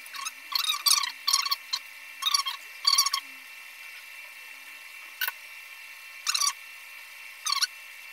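Short scratchy rubbing sounds as a plastic spool of copper desoldering braid is handled and the braid is drawn off it. There are about ten of them at irregular intervals, most within the first three seconds, with a faint steady high whine underneath.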